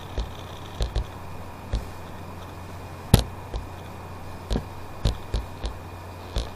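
About a dozen sharp, irregular clicks, one louder a little before the middle, made while the handwritten numbers on screen are erased and rewritten. A steady low electrical hum runs under them.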